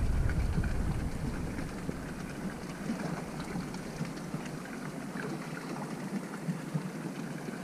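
Steady wind and sea-water noise aboard a drifting fishing boat, a fizzing, rain-like hiss with small ticks; a low wind rumble on the microphone fades out over the first couple of seconds.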